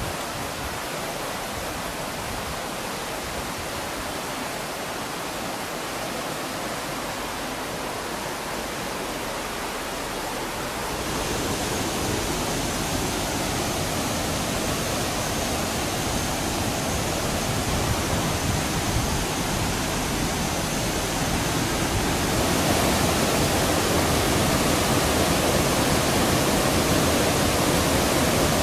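Oirase mountain stream rushing over rapids: a steady rush of water that gets louder about a third of the way in and again near the end.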